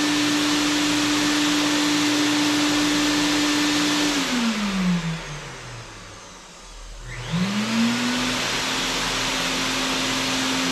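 Lincoln Electric Mini Fume X-Tractor's brushed blower motor running on high with a steady whine and rush of air. It spins down about four seconds in, spins back up about seven seconds in, and starts winding down again at the very end as it is switched over.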